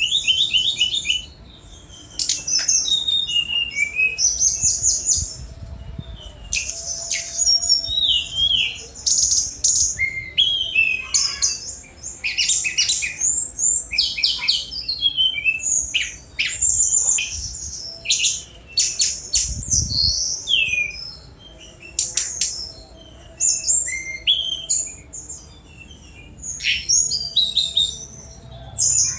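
Tledekan gunung, a jungle flycatcher, singing fast, high phrases of rapid trills and quick sweeping notes. The phrases follow one another with short pauses between them.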